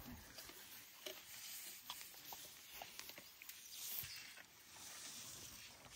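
Faint close rustling with scattered small clicks: a baby elephant calf mouthing and chewing on a hand that rubs his teeth, as he is thought to be teething.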